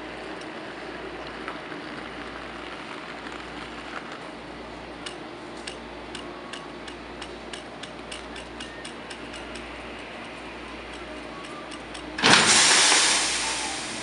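Two DB Class 411 ICE T trainsets coupling. A run of light clicks comes as the train creeps in, then near the end the automatic Scharfenberg couplers meet with a sudden loud burst of hissing air that fades over about a second and a half.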